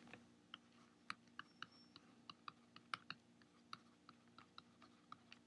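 Near silence broken by faint, sharp clicks at an irregular pace of about three or four a second.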